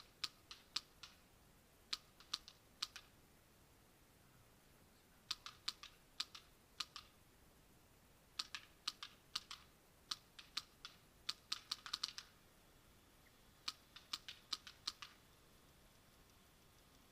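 Paintball marker firing in short strings of sharp pops, about four to eight shots per string with pauses of a second or two between, the strings near the middle coming faster.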